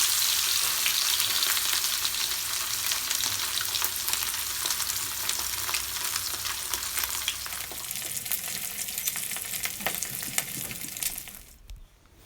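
Spice-rubbed fish pieces frying in hot oil in a pan: a steady sizzle packed with small crackles and spatters. It is loudest at first, eases slightly, and cuts off near the end.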